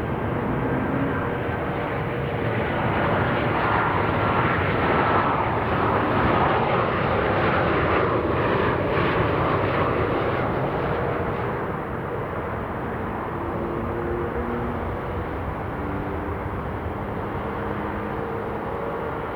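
Jet airliner's engines passing: a broad engine noise that swells to its loudest around the middle, with a faint whine sliding down in pitch, then eases off into a lower steady rumble.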